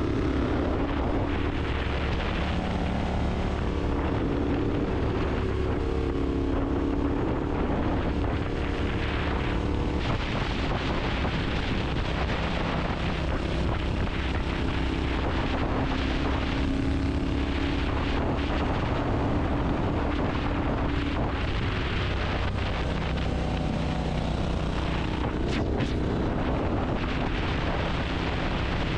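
Continuous rumble with a low engine drone whose pitch slowly wanders up and down.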